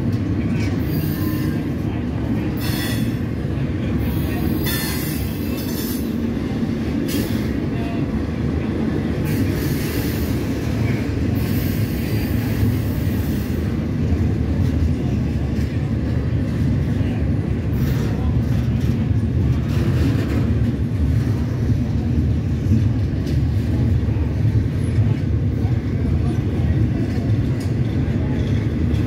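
Double-stack intermodal container well cars rolling slowly past, a steady low rumble of steel wheels on rail. Short high wheel squeals come and go, mostly in the first half.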